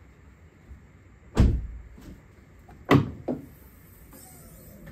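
Two heavy thumps from a car body, about a second and a half apart, as the bonnet is released and opened.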